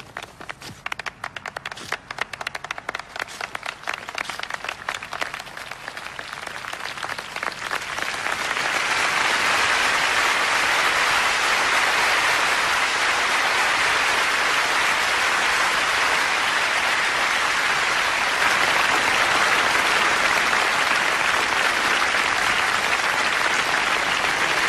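Large crowd applauding: scattered claps that build over the first several seconds into loud, dense, steady applause from about eight seconds in.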